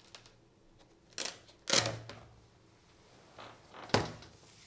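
A black document folder being opened and handled on a desk: papers and cover rustling and scraping, with a louder knock a little under two seconds in and a sharp click about four seconds in.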